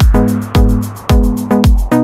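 Background electronic dance music with a steady kick drum, about two beats a second, over sustained bass and chord notes.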